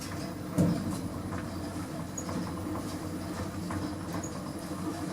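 Otis lift car running in its shaft: a steady low rumble with light clicks, and a knock about half a second in.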